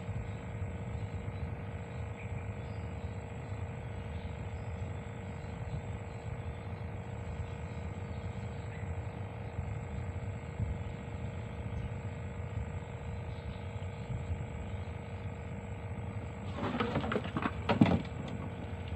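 A steady low rumble with a constant hum. Near the end comes about a second and a half of knocks and clattering, with one sharp knock the loudest, from the angler handling his spinning rod and reel in a small wooden boat.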